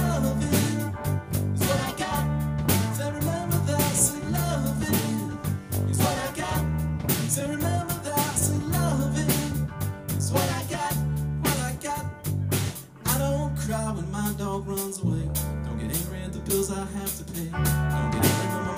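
Live band playing: electric guitar, electric bass and drum kit, with a steady bass line under regular drum hits.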